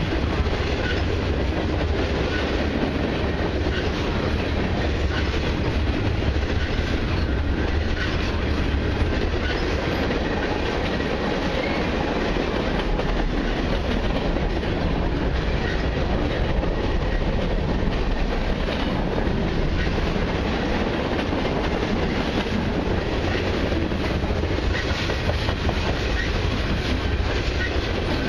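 Freight cars (covered hoppers, a gondola and autoracks) rolling past on the rails: a steady, unbroken rumble of steel wheels on track.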